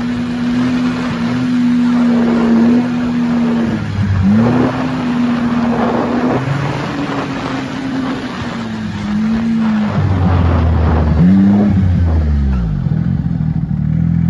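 Snowmobile engine running at trail speed. Its pitch holds steady, drops and climbs back about four seconds in, then rises and falls several more times in the second half as the throttle is eased and reapplied.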